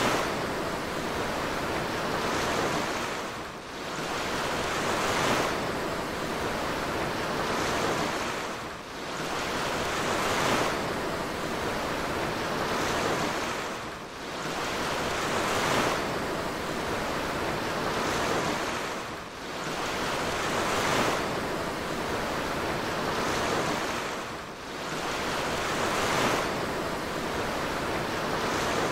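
Rushing, churning water of a cruise ship's wake with wind over the sea: a steady roar of noise that eases briefly and swells back about every five seconds.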